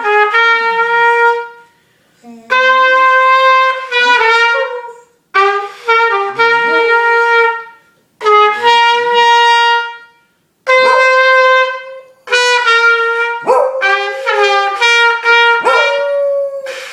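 A trumpet plays loud held notes in short phrases with brief pauses between them. A dog howls along, its voice wavering and sliding down beneath the trumpet's notes.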